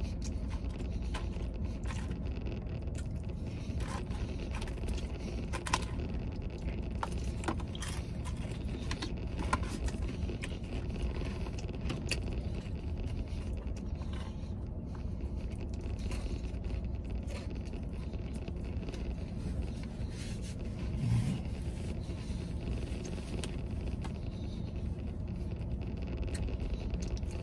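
Plastic fork scraping and tapping in a paper tray of animal-style fries, with scattered small clicks of eating and chewing, over a steady low rumble inside a vehicle cabin.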